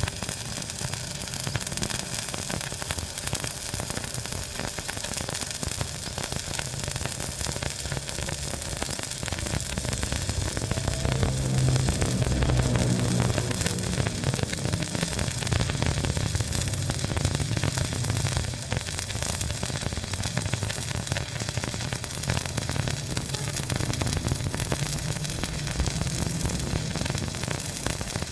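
Stick-welding arc crackling and sizzling steadily, with a low hum beneath, a little louder around the middle.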